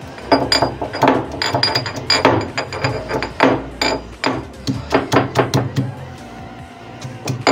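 Stone pestle pounding garlic in a marble mortar: a quick run of sharp knocks, about three a second, with a faint clink of stone on stone on some strokes. The pounding pauses for a second or so near the end, then starts again.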